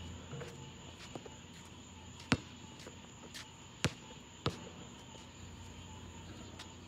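Basketball bouncing on an asphalt court: a few single sharp bounces, irregularly spaced, the loudest a little under four seconds in, over a faint steady low hum.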